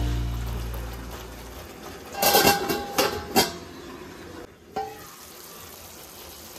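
A ukulele tune dies away, then cooking utensils scrape and clink on a pan in a short cluster about two seconds in and again a second later, with one more click near the end, over a faint steady hiss of sauce simmering.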